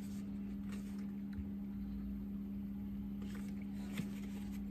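A steady low-pitched hum from a running motor or appliance, with a few faint clicks and taps from handling.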